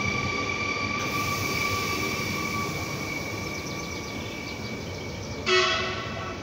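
Stadler FLIRT electric multiple units at the platform, their electrics giving a steady high whine over a low rumble. About five seconds in comes one short, loud pitched blast.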